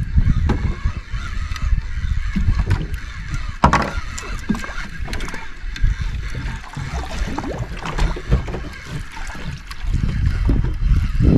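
Water sloshing and slapping against a boat's hull, with light clicks and ticks of a conventional jigging reel being cranked steadily to wind up a hooked fish.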